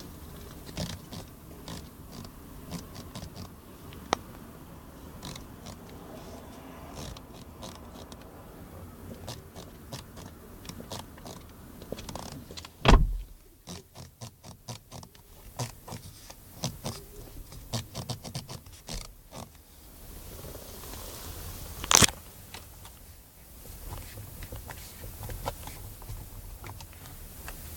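Chevrolet Orlando's interior door pull handle creaking and clicking over and over as it is pulled and worked. There are two loud thumps, one about halfway through and one about 22 seconds in.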